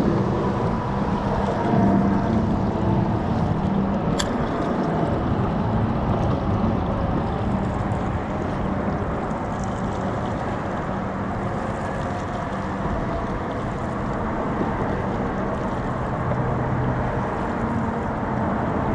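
Steady low rumble of wind and water on open water, with a faint engine hum coming and going underneath. A single sharp click about four seconds in.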